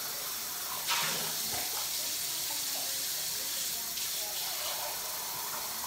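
Water tap running steadily, cut off suddenly at the very end.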